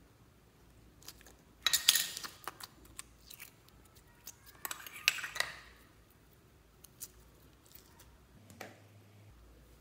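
Sharp plastic clicks as a small slime tub is opened, then sticky crackling as gold glitter slime is squeezed and worked by hand, in two clusters about two and five seconds in.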